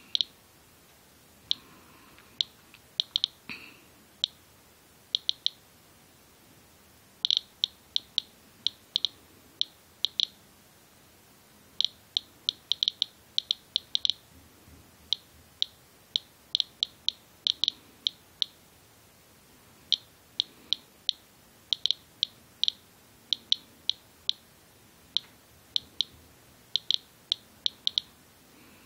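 Inspector USB Geiger counter chirping once for each radiation count it detects: short high-pitched beeps at irregular, random intervals, bunching up and pausing, averaging a few a second. The count rate, about 160 to 186 counts per minute on the hood of a winter coat, is several times the roughly 40 counts per minute of normal background.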